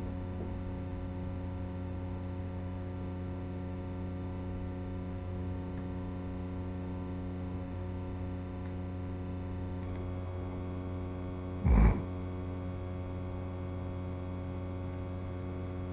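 Steady electrical hum with many evenly spaced overtones, the buzz carried on an analog FPV video link's audio. A brief loud thump comes about twelve seconds in.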